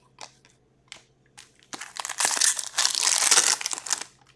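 Foil trading-card pack wrapper crinkling as it is handled and torn open: a few light clicks, then about two seconds of loud crinkling from just under two seconds in.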